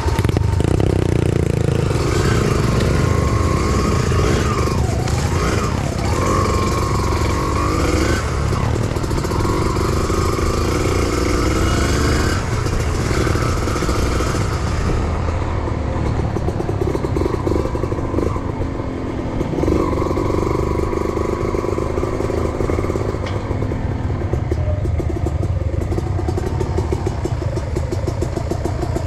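Motorcycle engine running under changing throttle, its pitch repeatedly rising and falling, then settling into a steadier note about halfway through.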